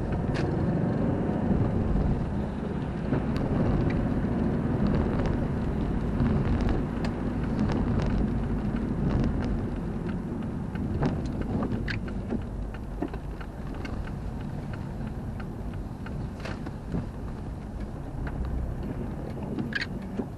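Road noise of a car heard from inside the cabin on a wet road: a steady low rumble of engine and tyres, with scattered ticks of raindrops on the windshield. The rumble eases and grows quieter after about twelve seconds as the car slows.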